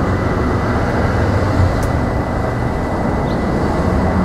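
Steady low traffic rumble of a street or transit station, with a thin steady high tone throughout.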